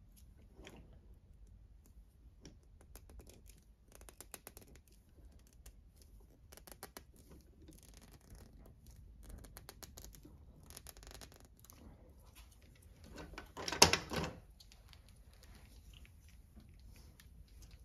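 Small plastic drip-irrigation fittings and quarter-inch tubing being handled and pushed together: faint scattered clicks and scratchy rustles, with a louder double knock and clatter about fourteen seconds in.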